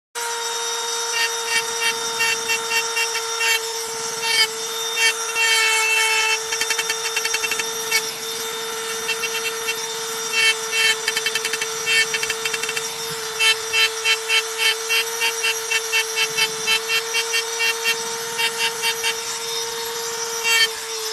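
Handheld electric rotary tool running with a steady high whine while its fine bit engraves lines into a dark stone slab. The bit scratches the stone in quick runs of short gritty pulses, about four a second, as it is worked along the lines.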